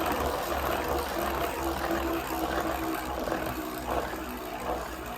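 Metal Fight Beyblade Storm Pegasis 105RF spinning in a plastic stadium: a steady whirring rattle as its rubber flat tip races around the bowl, easing off slightly toward the end.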